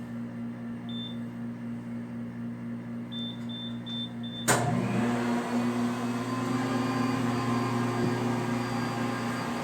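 Commercial coffee vending machine humming, beeping once and then four times in quick succession, then a sharp click as a motor inside starts, spins up and runs noticeably louder.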